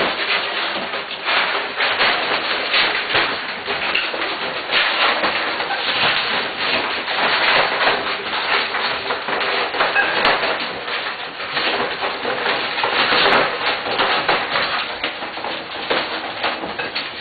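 A litter of white German Shepherd puppies eating, a dense, continuous run of quick clicks and knocks as they crunch their food and knock against their bowls.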